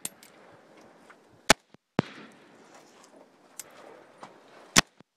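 AK-47 rifle firing 7.62×39 mm rounds in slow single shots: three sharp, loud cracks, two about half a second apart and the last near the end.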